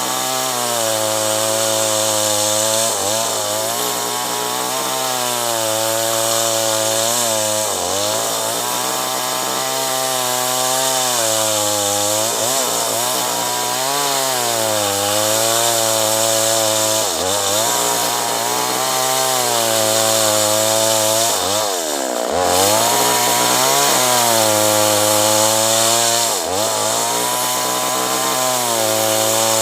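Two-stroke chainsaw running at high speed while cutting acacia wood, its pitch sagging briefly under load about every four to five seconds and then picking back up.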